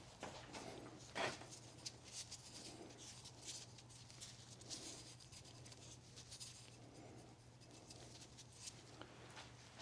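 Faint handling noises of fingers spreading oil onto a new rubber O-ring on an oil filter housing cap: soft rubbing and small scattered clicks, one sharper click about a second in, over a steady low hum.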